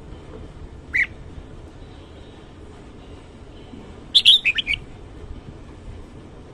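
Red-whiskered bulbul calling: one short chirp about a second in, then a quick phrase of about five bright notes just after four seconds, the loudest part.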